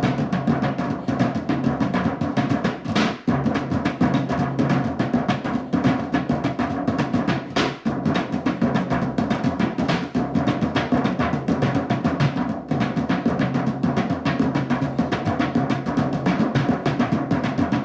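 Fast, continuous drumming, with dense drum strikes one after another and no break.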